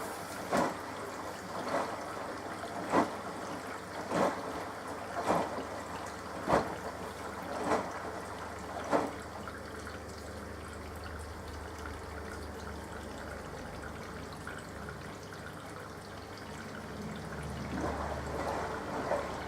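Hoover AXI front-loading washing machine on a delicate 40°C wash: the drum turns and the wet laundry slaps and sloshes through the water about once every 1.2 seconds, eight times. Then the splashing stops and water trickles under a low hum that grows louder near the end.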